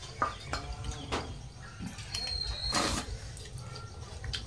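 Eating by hand from steel plates: scattered clicks and scrapes of fingers and rice against the metal, with a sharp click just after the start and a louder scrape about three seconds in, over a steady low rumble.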